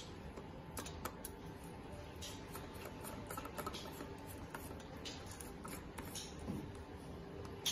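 Faint scattered ticks and scrapes of a light bulb being screwed by hand into a plastic lamp socket, over a faint steady hum.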